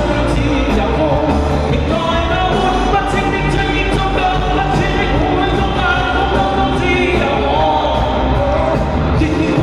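Chinese pop song: a voice singing over a full band backing with a steady drum beat.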